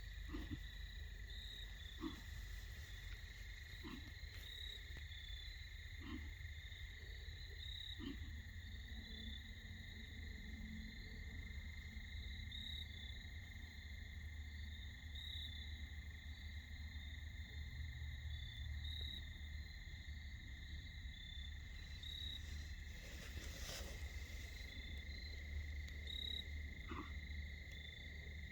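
White-tailed buck coughing: a short cough about every two seconds over the first eight seconds, and once more near the end, over a steady trill of crickets. The hunter suspects the buck is sick or has something wrong with its nose, sinuses or throat.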